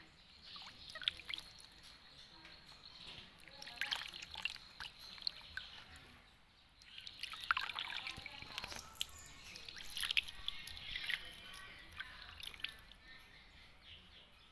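Water splashing, dripping and trickling in a plastic basin as a baby monkey is washed by hand, coming in several bursts of small splashes a few seconds apart.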